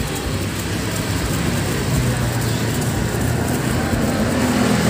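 Steady roadside traffic noise: a continuous hum of passing vehicles, with a faint low engine-like drone from about two seconds in.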